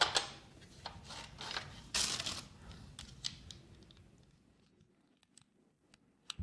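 Clicks and scraping from a window's metal fittings being handled and worked on, a run of short knocks and rustles that stops about four seconds in, with one more click near the end.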